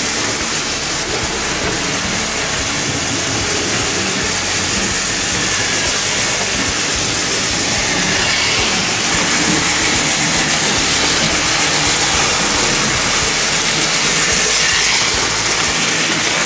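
Fleischmann gauge 0 model train running on its track, heard close up: a steady, loud rolling rumble and hiss of wheels and motor.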